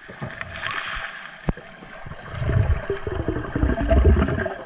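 Muffled underwater rumbling and gurgling as a diver's gloved hand digs through seabed pebbles, getting louder and more scrapy in the second half, with one sharp click about a second and a half in.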